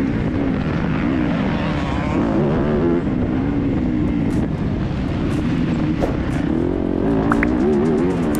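Motocross bike engine revving up and down continually as it is ridden hard around a dirt track, heard from an onboard camera.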